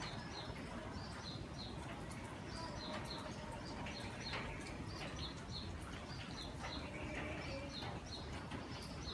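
A small bird chirping over and over in short, high chirps, about two a second, over steady low background noise.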